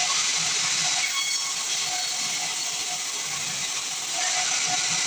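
Band sawmill blade cutting through a pine log: a steady hissing rasp that eases slightly in the middle and picks up again about four seconds in.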